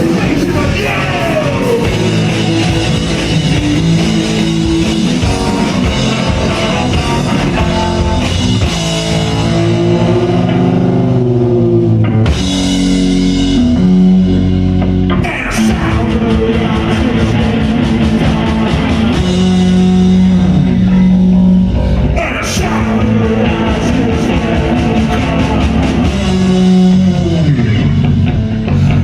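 Live punk rock band playing loudly: distorted electric guitar, bass, drum kit and shouted vocals.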